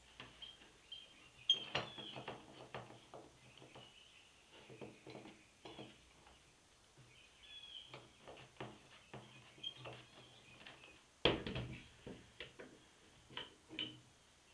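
Scattered light knocks and taps of wooden handscrew clamps and a glued-up wooden workpiece being handled and shifted on a wooden workbench, with a louder wooden clatter about eleven seconds in.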